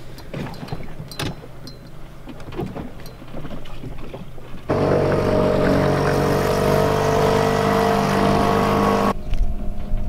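A boat motor running steadily and loudly, starting and stopping abruptly in the second half. Before it come scattered knocks and clatter of handling on the deck.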